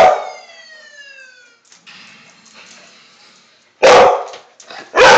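Pet dog barking in alarm at a rubber band it fears. A bark at the start trails off into a faint falling whine, then two sharp barks come about a second apart near the end.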